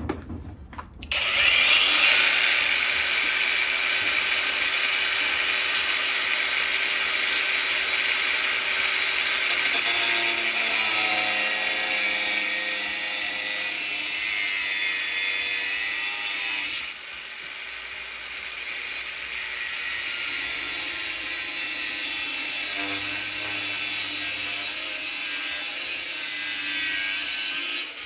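Handheld electric power tool grinding sheet steel with a steady hiss, starting about a second in, easing off briefly past the halfway point and then running on.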